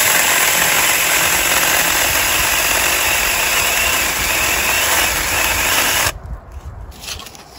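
Saker 20 V battery-powered mini chainsaw running at full speed and cutting through a thick pear-tree branch. It starts abruptly and stops suddenly about six seconds in.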